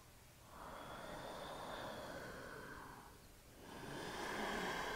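A woman breathing slowly and deeply: two long breaths, one after the other, each swelling and fading over about two and a half seconds.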